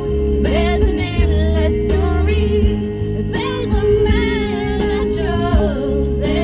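Pop ballad with a woman singing over sustained backing and a steady bass line.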